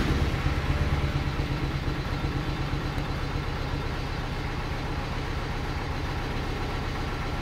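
BMW E92 320i's freshly rebuilt four-cylinder petrol engine running just after it catches on its first start. It is loudest in the first second, then settles to a steady idle through a muffler-deleted exhaust. One fuel injector is unplugged, so one cylinder is not firing.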